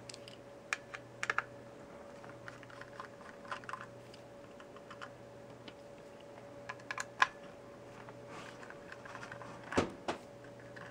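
Scattered light clicks and taps of a screwdriver and a multimeter's circuit board and plastic case being handled during disassembly, irregular and a few at a time, the sharpest about seven seconds in and near the end. A faint steady hum runs underneath.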